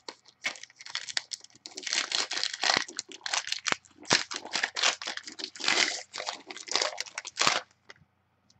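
The foil wrapper of a Panini Prizm basketball card pack crinkles and tears as it is opened by hand, in a rapid run of crackles that stops shortly before the end.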